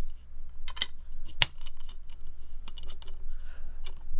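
Metal camera super clamp and its screw adapters being handled, giving several sharp, irregular clicks and clinks.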